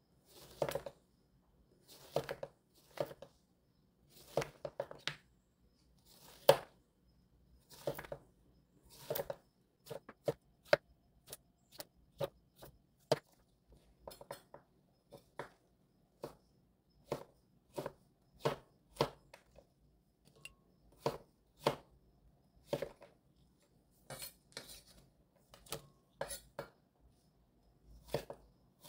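Kitchen knife slicing a Korean squash on a wooden cutting board, each cut ending in a sharp knock on the board. The cuts come about once a second at first and quicken to about two a second from about ten seconds in, as the rounds are cut into thick strips.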